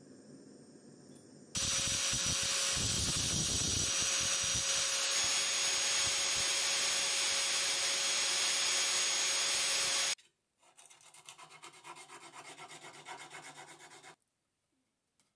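Angle grinder starts up and grinds a small steel blade against its spinning disc, a steady loud grinding with a fixed whine, cutting off suddenly after about eight seconds. Then quieter quick back-and-forth strokes as the blade is honed by hand on a perforated diamond sharpening plate.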